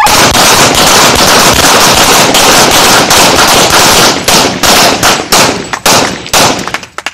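Rapid handgun fire from two pin shooters firing at once at bowling pins, the shots overlapping densely and very loud. After about four seconds the fire thins to single shots a fraction of a second apart, with the last shots shortly before the end as the final pins are cleared.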